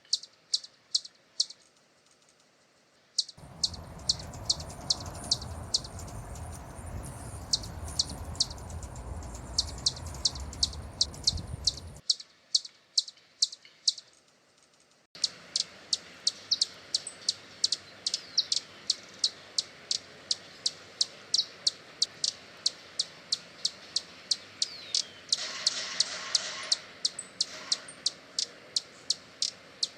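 Hummingbird giving a long series of sharp, high chip calls, two or three a second.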